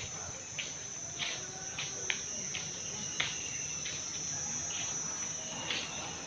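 Steady high-pitched drone of insects, with footsteps on a tiled floor every half-second or so.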